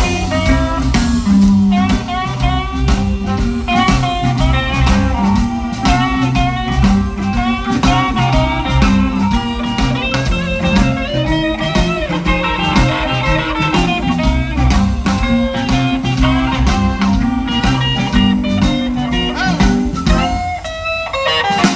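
Blues band playing live through a PA in an instrumental passage: a guitar lead with bending notes over bass and drum kit. The low end drops out briefly near the end.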